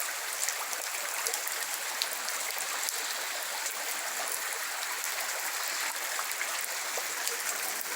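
Steady rain falling, a constant hiss with many small droplet ticks.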